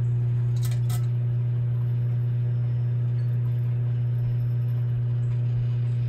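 Microwave oven running with a steady low electrical hum, a light bulb heating inside it. A couple of faint ticks come about a second in.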